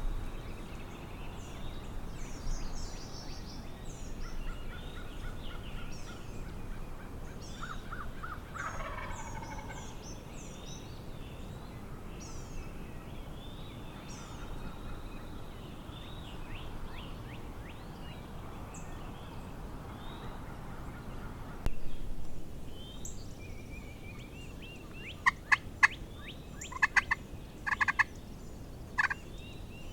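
A wild turkey gobbles about nine seconds in, a falling rattling call, and runs of short turkey yelps come before it and again near the end. Small songbirds chirp throughout, and there is a brief bump a little over twenty seconds in.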